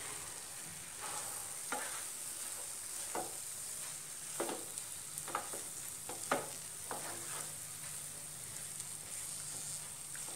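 A spatula stirring soaked flattened rice (poha) in a nonstick frying pan over a faint steady sizzle, with irregular scrapes and taps against the pan, most of them in the first seven seconds.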